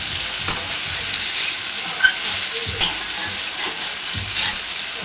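Chicken pieces frying in hot oil and soy sauce in a small pan: a steady sizzle with a few sharp clicks.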